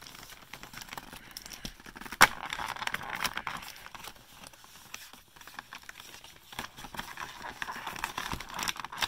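Cardboard advent calendar door being opened and handled: a sharp snap about two seconds in, then rustling and scraping of cardboard with scattered small crackles.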